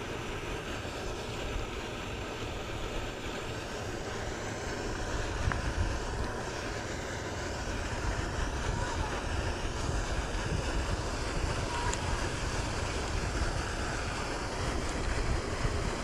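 Wind buffeting the microphone: an uneven low rumble under a steady rushing hiss, growing a little stronger about halfway through.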